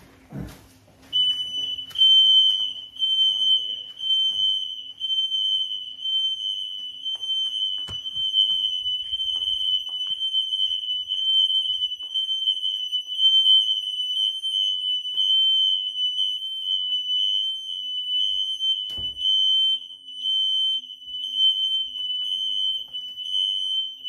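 Interconnected smoke alarms sounding in test mode, set off from the wall controller's test button: a high-pitched electronic tone that starts about a second in and holds, wavering in loudness.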